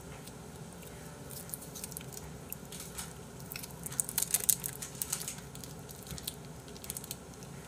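Mouth sounds of a person eating a slice of cheese: soft, wet chewing clicks and smacks, busiest around the middle.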